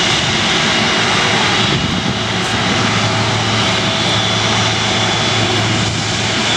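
Airliner engines running steadily at the airfield: an even rush of noise with a steady high whine and a low hum.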